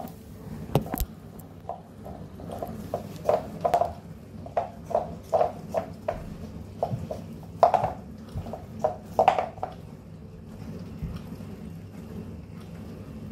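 A cat licking ice cream out of a cardboard tub: a run of quick wet lapping sounds, about two or three a second, that stops about ten seconds in, over a faint steady hum.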